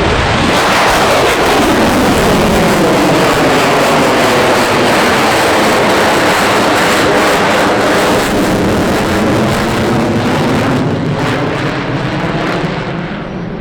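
Airplane passing close by with loud engine noise; its pitch sweeps down during the first couple of seconds, and the sound eases a little near the end.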